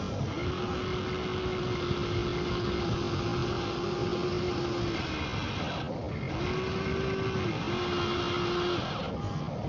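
Small electric motor of a radio-controlled model vehicle whining steadily under load over a constant noisy background, stopping about five seconds in and starting again a second and a half later for another two seconds.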